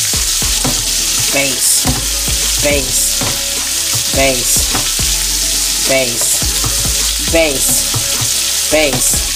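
Butter sizzling hard around pan-seared scallops while a metal spoon bastes them, scooping and scraping across the pan about every one and a half seconds. Each scoop brings a short squeal falling in pitch, along with clicks and a brief flare of the sizzle.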